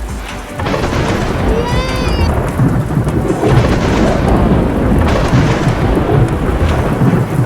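Thunder rumbling over steady rain, swelling in loudness about half a second in. A short pitched tone that bends up then down comes through briefly about two seconds in.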